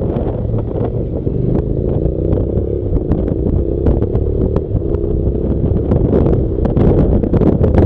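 Honda NC700's 670 cc parallel-twin engine running steadily as the motorcycle rides along, with wind buffeting and flapping on the microphone.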